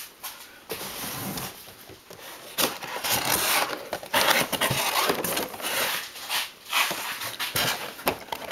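Cardboard display box being handled and opened: the end flap is pulled open, and the cardboard and clear plastic packaging scrape and rustle in irregular bursts.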